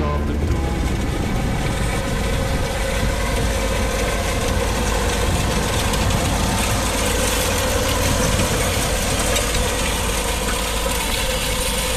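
Deutz-Fahr 7250 TTV tractor's six-cylinder diesel engine running steadily while pulling a Gaspardo precision seed drill across the field, with a steady hiss over it.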